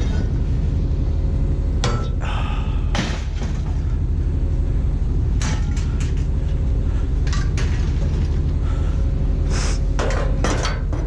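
A steady, loud low mechanical rumble, like a running engine, with scattered knocks and rattles over it.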